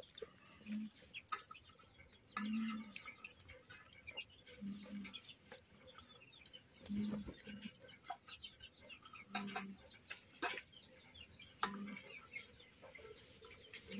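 Chickens clucking with a short low cluck about every two seconds, small birds giving brief rising chirps, and scattered sharp clicks.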